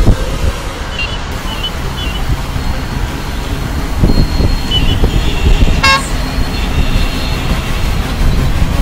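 Highway traffic with heavy truck engines running, a few short high horn beeps, and a brief honk about six seconds in.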